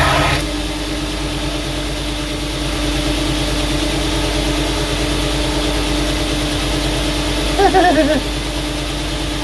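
Belt grinder with a finishing belt running steadily with a constant hum. A louder grinding noise stops about half a second in, and a brief wavering, falling whine comes near the end.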